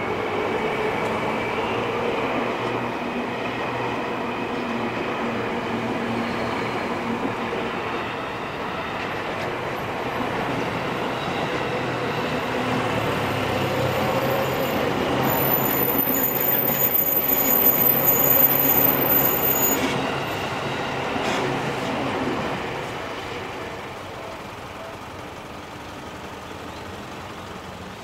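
Seibu Shinjuku Line electric commuter train rolling across a level crossing, a steady rumble with road traffic passing. A thin high whine of the wheels sounds for a few seconds in the middle, and the train noise dies down about three quarters of the way through.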